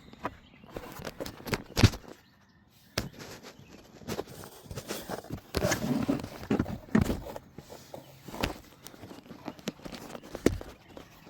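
Irregular clicks, knocks and rustling from hands working the glove box's spring-loaded latch release cable loose from its plastic retaining clip, with the sharpest knock about two seconds in and a busier run of clicks a little past the middle.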